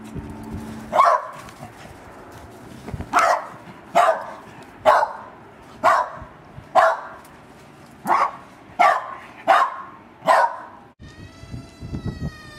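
A dog barking: about ten sharp single barks, roughly one a second. Near the end, after a sudden break, a drawn-out high-pitched whining call.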